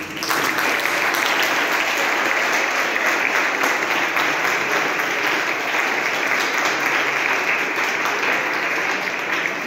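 Audience applauding, starting all at once and going on steadily.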